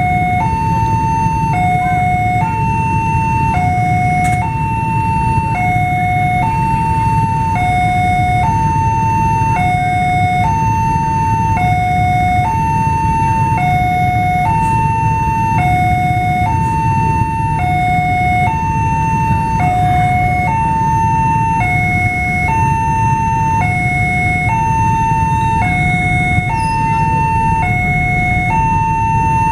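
Railway level crossing's electronic warning alarm sounding a steady two-tone ding-dong, a higher and a lower tone alternating about every half second, which warns that a train is approaching. A steady low rumble lies beneath it.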